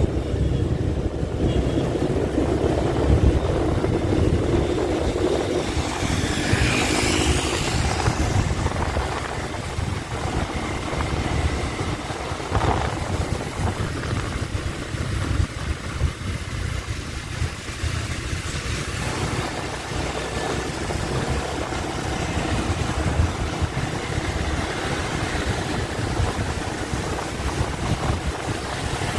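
Riding through busy city motorbike traffic: wind rumbles on the microphone over the running engines of the motorbikes around, with a louder whoosh of a passing vehicle about seven seconds in.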